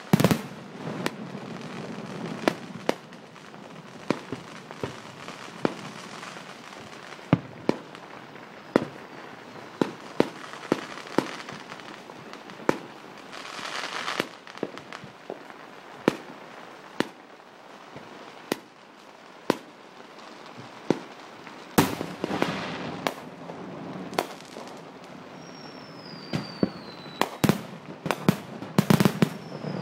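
Fireworks going off: sharp bangs of aerial shells and firecrackers, scattered throughout, with a crackling patch about halfway through. Near the end comes a dense volley of loud bangs as a shell bursts close by, with a couple of falling whistles.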